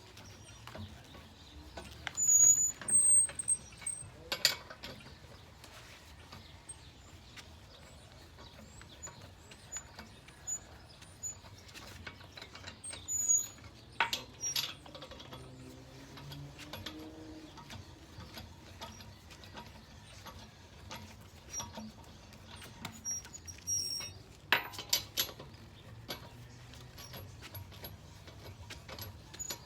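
Scattered metallic clicks and knocks of hand tools and parts during front brake reassembly, in a few short clusters, with faint bird chirps in the background.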